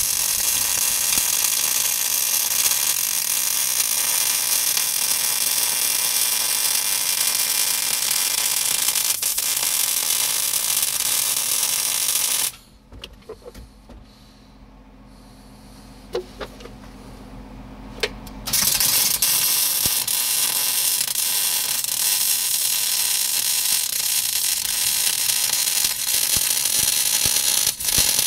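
Electric arc welding on a cracked steel tractor seat bracket: the welding arc hisses steadily for about twelve seconds, stops for about six seconds, leaving only a faint low hum and a few clicks, then strikes again for a second run of about nine seconds that ends just before the close.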